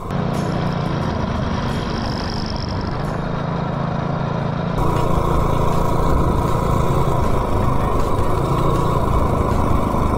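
Coleman mini bike's small single-cylinder engine running while the bike is ridden along the road. The engine gets louder about five seconds in.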